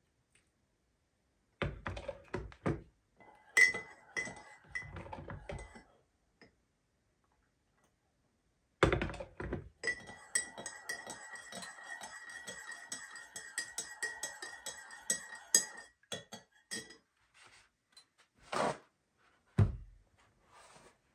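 A metal spoon clinking in a ceramic coffee mug, with knocks of the mug and other items on the counter. Midway comes about six seconds of quick, continuous stirring, each clink ringing.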